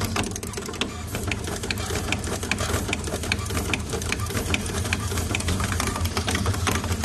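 Four-head automatic component insertion machine running: rapid mechanical clicking and clattering of the insertion heads, several clicks a second, over a steady low machine hum.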